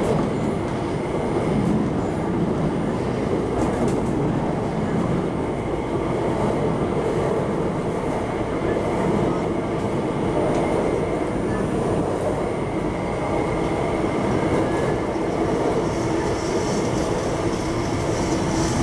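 Steady running noise inside an MTR IKK-train (SP1900) passenger car travelling underground: an even rumble of wheels on rail, with a faint steady whine over it.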